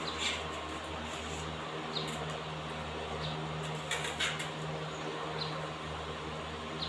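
Steady electrical hum with a hiss, and short high chirps and clicks every second or so.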